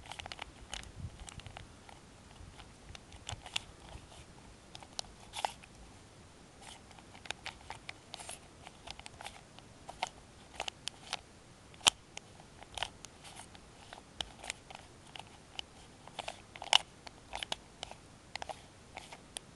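A budget 3x3x3 puzzle cube being turned fast in the hands: its plastic layers click and clack in quick irregular runs, with a couple of sharper snaps about twelve and seventeen seconds in.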